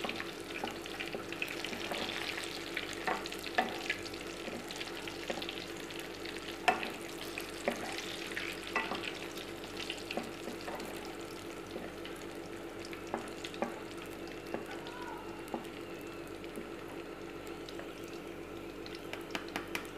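Pieces of salted Spanish mackerel sizzling in hot oil in a wok, fried golden brown, with a spatula and wire strainer clicking and scraping against the pan as the fish is lifted out.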